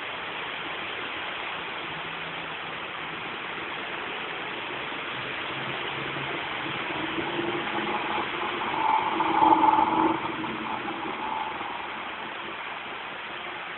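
Steady rain hiss over a flooded street, with a motor vehicle driving through the water. Its engine grows louder to a peak about two-thirds of the way in, then fades.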